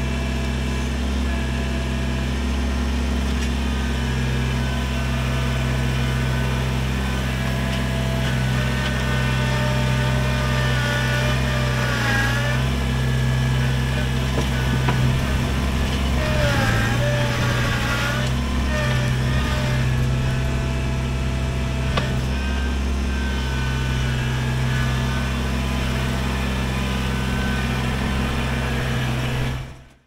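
Kubota BX23S compact tractor's three-cylinder diesel engine running steadily while its backhoe digs, its higher tones wavering briefly a few times around the middle. The sound fades out at the very end.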